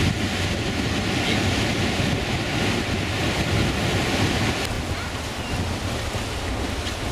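Surf breaking and washing over a rocky shore, with wind gusting on the microphone. About two-thirds of the way through, the sound cuts to a quieter, wind-blown outdoor hiss.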